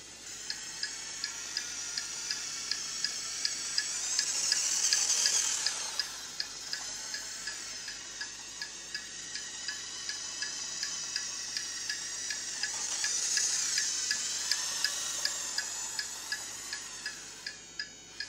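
Turn-signal clicking effect from the Turbo Racing C50 1:76 RC semi truck's sound module: a steady run of short pitched ticks, about two a second, starting about half a second in. Under it the truck's running sound swells twice as the truck drives past.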